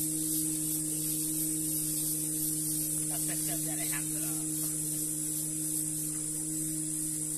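A steady low hum with even overtones, under a constant high shrill hiss; a few faint short chirps about three seconds in.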